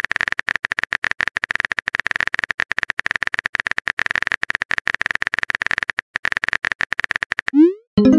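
Chat-app typing sound effect: a fast run of clicks over a steady high tone, stopping about seven and a half seconds in. A short rising blip follows as the message is sent, and a message-arrival chime starts right at the end.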